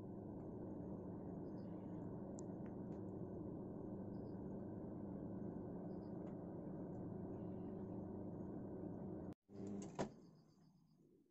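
LG microwave oven running in grill mode with the rotisserie turning: a steady electrical hum. About ten seconds in there is a sharp click, and the hum dies away.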